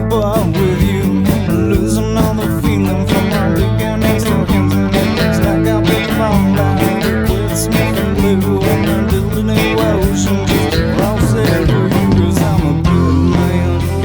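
Instrumental stretch of a rock song: guitar over bass and a steady drum beat, with no vocals.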